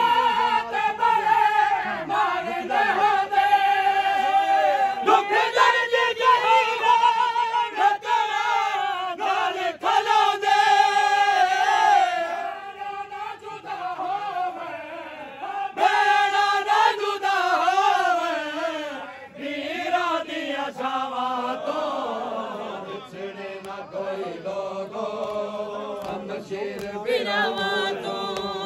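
A group of men chanting a noha, a Shia mourning lament, sung in a slow, repeating melody. The chant drops softer for a few seconds about halfway through, then rises again.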